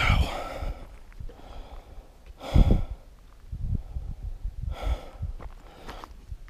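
A man's heavy breathing close to the microphone: three loud breaths, the loudest about halfway through, with quieter rustling between them.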